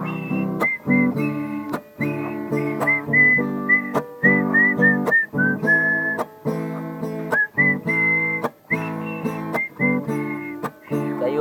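A man whistling a melody over his own strummed acoustic guitar chords. The whistle carries the tune as a single high tone, sliding between notes, with short breaks between phrases.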